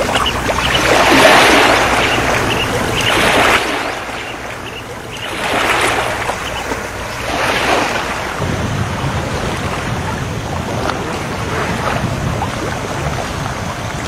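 Small sea waves washing against a rock seawall, coming in surges every couple of seconds and loudest in the first few seconds, with wind buffeting the microphone as a low rumble.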